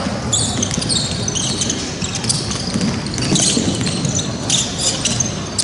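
Basketball game on an indoor hardwood court: the ball bouncing as it is dribbled, and players' sneakers squeaking in short chirps on the floor.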